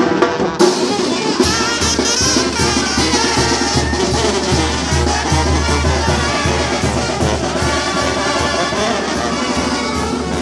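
Mexican banda brass band playing live: trumpets and trombones over drums, with a steady low bass pulse coming in about a second and a half in.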